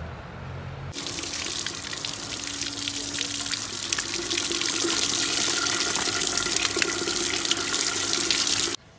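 Water gushing from an outdoor tap spout over a plastic basket of coriander leaves being rinsed by hand, splashing into a concrete basin below. It starts about a second in and cuts off suddenly just before the end.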